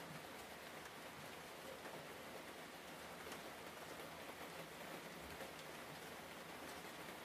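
Faint steady hiss with a few faint ticks scattered through it.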